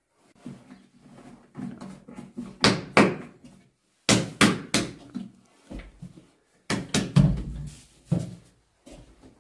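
Irregular run of sharp knocks and slaps, several in quick groups of two or three, some with a dull thud beneath.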